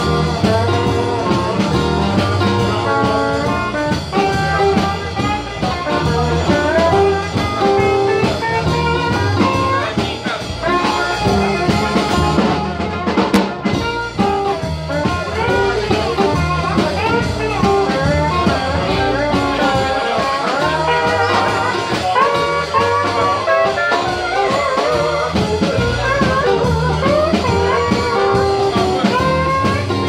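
Live acoustic group playing a tune: strummed acoustic guitars over the steady notes of an Ibanez PCBE-12 acoustic bass guitar amplified through a Fender Rumble 100 bass amp, with a melody line on top that bends in pitch.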